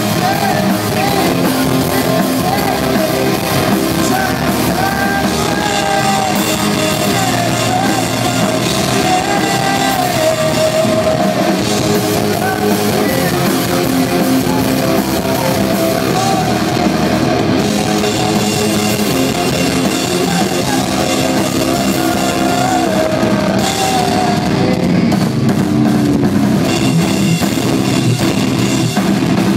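Metalcore band playing live and loud: drum kit, distorted electric guitars and sung vocals.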